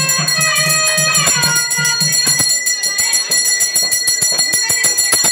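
Temple ritual sound: bells ringing rapidly with quick, evenly spaced strikes, about seven a second. In the first two seconds a melody slides between notes over a low pulsing beat.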